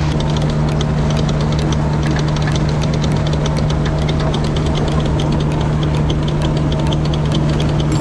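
Grimme Tectron 415 self-propelled potato harvester working, heard close up at its digging front: a steady engine hum under a rapid, irregular clicking clatter from the lifting and intake web as soil and potatoes pass through.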